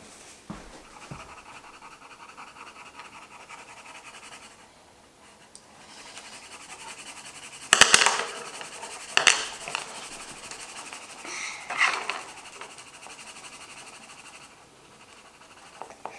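Coloured pencil scratching steadily on paper as a drawing is shaded in, with two sharp knocks on the tabletop about eight and nine seconds in.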